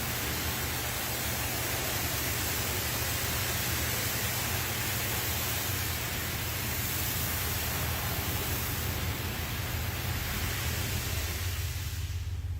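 Automatic car wash spraying water in a steady rush, with a low machine hum beneath. The spray cuts off shortly before the end, leaving only the hum.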